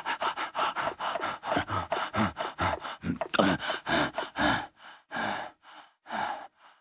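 A voice actor's heavy, rapid panting for an exhausted cartoon cow, about four breaths a second, slowing to a few spaced breaths near the end.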